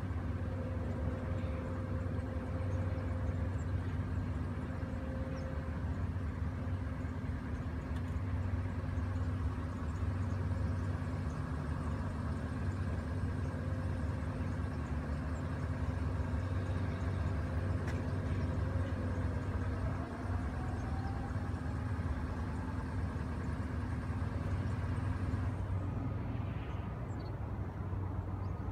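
Steady low hum of an idling vehicle engine, with a faint rising tone about twenty seconds in.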